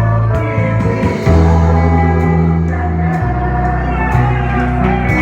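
Live worship band playing between sung lines: sustained bass and keyboard or guitar chords changing every second or two, with light drums.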